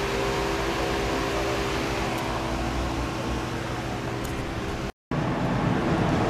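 Pedestal fan running: a steady rush of air with a low motor hum. It breaks off suddenly about five seconds in, and a different steady noise follows.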